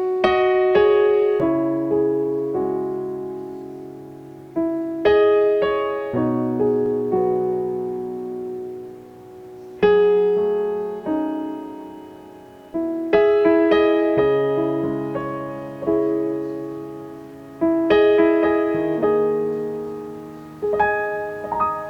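Background piano music: slow phrases of struck notes and chords, each ringing out and dying away before the next phrase begins.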